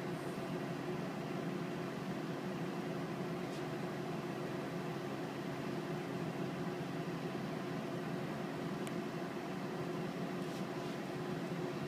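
A machine's steady hum with a low hiss and a few constant tones. It does not change, and it has no rhythm.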